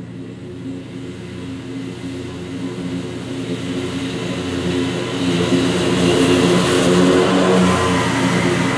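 Scag Cheetah zero-turn mower's engine and spinning blades cutting thick field grass, sped up in timelapse. It grows louder as the mower drives toward the microphone and is loudest from about five seconds in as it passes close.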